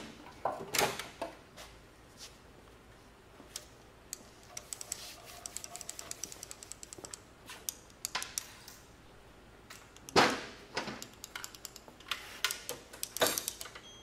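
Metal hand tools and engine parts clinking and clanking during the teardown of a Ford 289 V8's valve train, with a quick run of fast, even clicks for a couple of seconds in the middle and a louder clank about ten seconds in.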